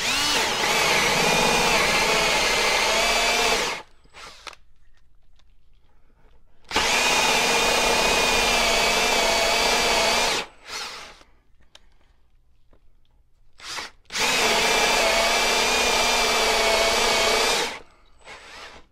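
Cordless Milwaukee drill turning a 2-1/8-inch Milwaukee Hole Dozer hole saw as it cuts into wood. The drill runs at a steady speed in three runs of about three and a half seconds each, separated by short pauses with a few brief blips.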